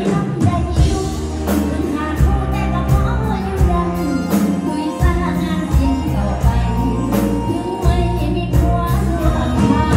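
Live Thai Isan luk thung band playing over a stage sound system, with a heavy bass line and a steady drum beat, and a woman singing over it.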